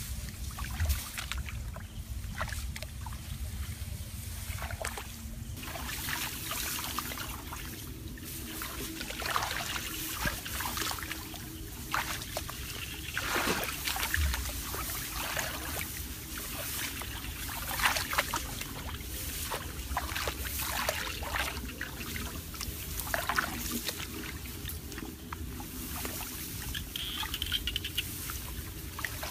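Shallow water sloshing and trickling, with many small irregular splashes.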